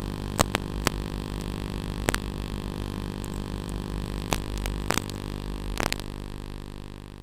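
Blade 120SR micro helicopter's electric motor and rotors buzzing steadily, heard through its onboard camera, with several sharp clicks. The buzz fades away near the end.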